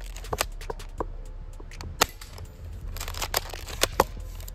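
Spring-powered airsoft pump shotgun, a Double Eagle M56B, being racked and fired: a string of sharp clicks and snaps, loudest about two seconds in and again just before four seconds.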